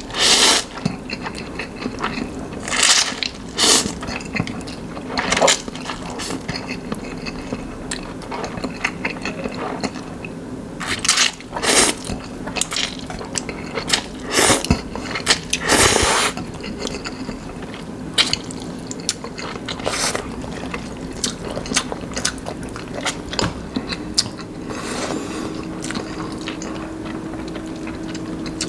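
Instant noodles being slurped off chopsticks: repeated short, loud slurps several seconds apart, with chewing in between.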